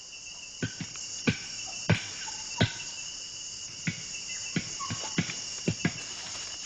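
Steady chorus of forest insects with about a dozen sharp, hollow knocks at an uneven pace, the sound of chimpanzees cracking nuts with hammers against a root anvil.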